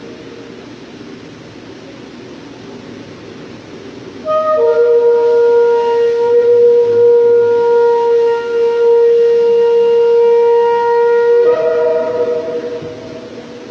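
A long, steady horn-like note that comes in loudly about four seconds in and is held at one pitch for about seven seconds, over fainter sustained tones before and after.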